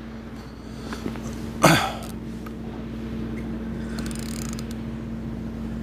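Steady low machine hum, with one short, loud sound sweeping down in pitch about one and a half seconds in.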